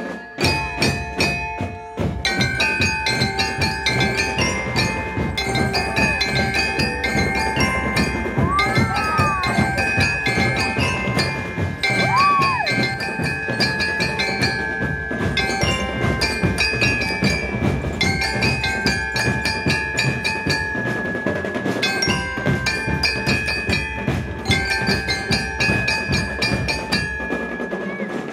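Marching band music of bell lyres and drums: bright glockenspiel-like bells play a melody over dense, rapid drumming.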